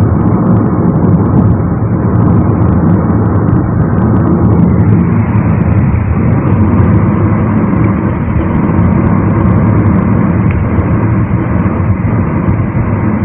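Steady road and tyre noise of a car driving at highway speed, heard from inside the cabin.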